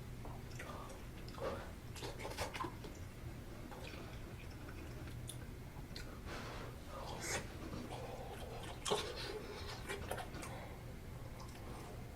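Close-miked eating sounds of someone eating budae jjigae with ramen noodles: soft chewing and wet mouth sounds with scattered light clicks, the loudest about nine seconds in, over a faint low hum.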